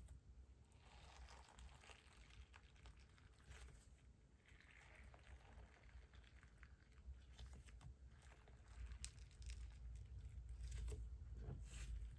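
Faint squishing and small sticky crackles and clicks of a cream-coloured slime being kneaded and folded by hand, growing a little louder with a few sharper clicks near the end.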